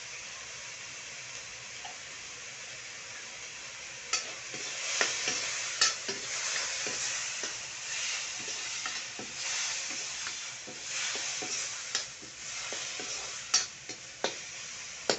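Onion-tomato masala sizzling in oil in an iron kadai. From about four seconds in, a spatula stirs and scrapes it around the pan, with sharp clicks of the spatula against the metal.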